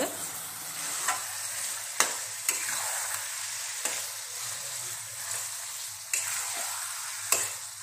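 Spiced mutton sizzling in a kadai as a flat metal spatula stirs it, with a steady frying hiss and sharp knocks of the spatula against the pan every second or so. The masala is being worked into the meat at the start of frying it down.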